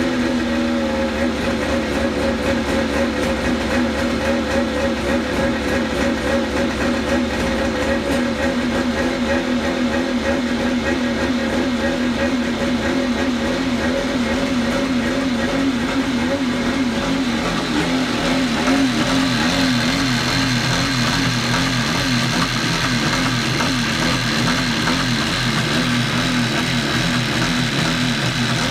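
1987 Kawasaki X2 jet ski's two-stroke twin idling out of the water on a stand, test-run to see whether tightening the exhaust manifold nuts has stopped its leaks. The revs drop and settle in the first second, then it holds a steady, slightly wavering idle.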